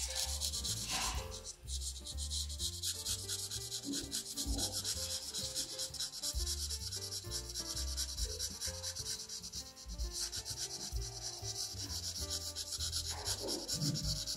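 Broad felt-tip marker rubbing across paper as it colours in a drawing: a dense, scratchy hiss of rapid back-and-forth strokes that stops at the end.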